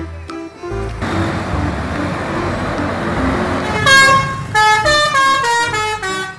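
A coach's multi-tone musical horn playing a quick tune of short stepped notes, starting about four seconds in. Before it, a few seconds of steady engine and road noise.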